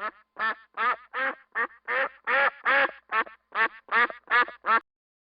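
Duck quacking: a series of about a dozen quacks, nearly three a second, ending abruptly a little before five seconds in.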